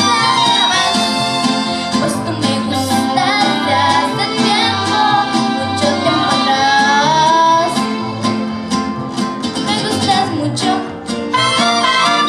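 Live mariachi band playing, with violins, trumpets, guitar and vihuela, while a young girl sings.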